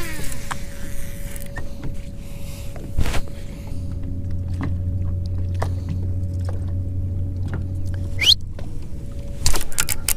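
Baitcasting rod and reel cast with a swish, the spool whirring down as the line goes out, followed by a retrieve with clicks and a steady low hum in the middle. Near the end comes a sharp knock as the rod is set into a hooked bass and bends hard.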